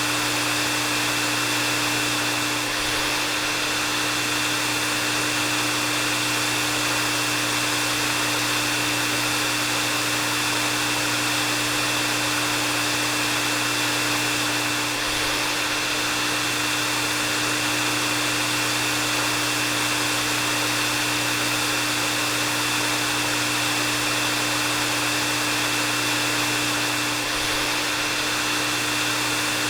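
Hair dryer running steadily: a constant rush of blown air with a steady high whine and a low hum. The level dips slightly about every twelve seconds.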